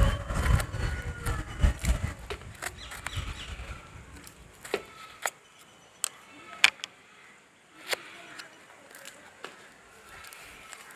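Wind buffeting the microphone with a rumble for the first few seconds, then a small corrugated cardboard box being handled and its flap opened: scattered sharp clicks and taps of fingers and cardboard.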